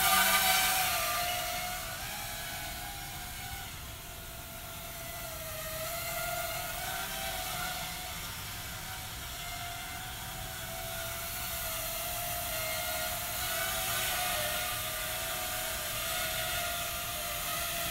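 Small hobby quadcopter's motors and propellers whining in flight, the pitch wavering up and down as the throttle changes. Loudest in the first second as it passes close.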